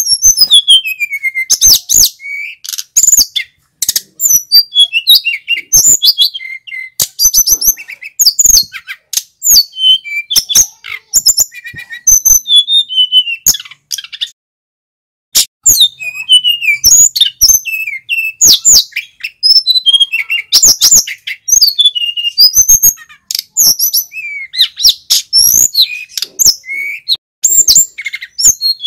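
Male sikatan gunung (an Indonesian flycatcher) singing in full voice: a dense run of rapid, high chirps and sweeping whistled notes, broken by a pause of about a second midway.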